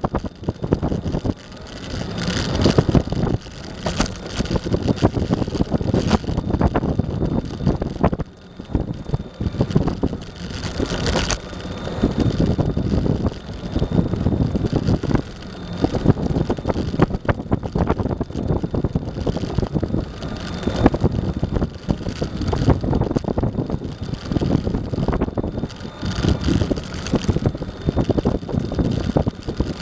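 Electric skateboard rolling fast over asphalt, heard through a microphone mounted on the board: a rough wheel and deck rumble with steady rattling, mixed with wind buffeting the microphone, swelling and easing with a few brief lulls.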